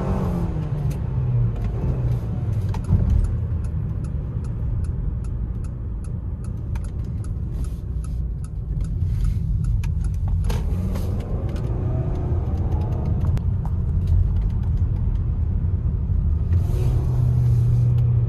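BMW X7 M SUV driving up a road with a loud, steady low rumble of tire and road noise, its engine note rising and falling now and then. A run of faint regular ticks sounds through the middle.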